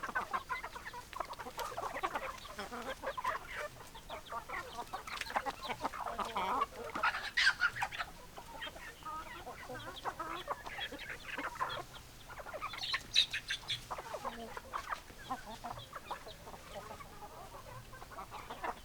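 Hens clucking, several birds calling over one another in short repeated clucks, with louder, higher calls about seven seconds in and again near thirteen seconds.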